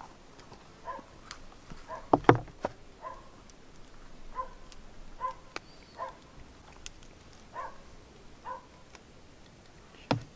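An animal's short calls repeating roughly once a second, with a cluster of sharp knocks about two seconds in.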